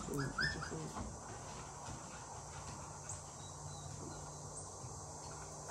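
Beagle puppies whimpering briefly in the first second, a few short rising whines, then faint outdoor background with a steady low hum.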